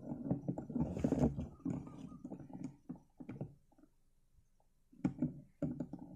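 Handling noise from a camera mounted on an air rifle's scope: irregular rubbing and small knocks as the rifle is moved. It stops for about a second and a half past the middle, then starts again.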